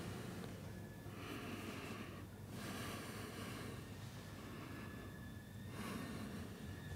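Close, heavy breathing through the nose: several slow breaths, each a soft rush of air about a second long, over a low steady hum.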